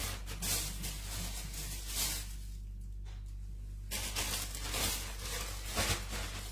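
Bird's-eye chili stems and leaves rustling in the hands as the peppers are picked off, in short bursts that pause for a moment about two seconds in and then resume.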